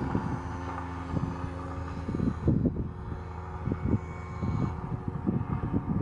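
ZDZ 180 twin-cylinder two-stroke petrol engine of a large radio-controlled Extra 260 aerobatic model running steadily in flight, with its propeller. Gusts of wind buffet the microphone throughout.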